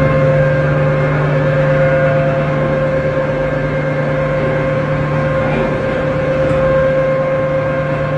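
Ship's anchor windlass heaving in the anchor chain: a loud, steady machinery hum with a strong constant tone, unchanging throughout.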